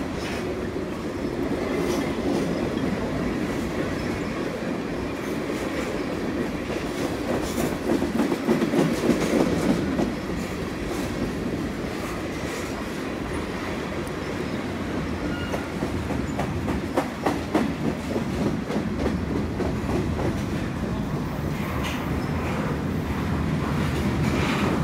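Freight train cars rolling past: steel wheels rumbling steadily along the rails, with louder bursts of clacking about a third of the way in and again just past the middle.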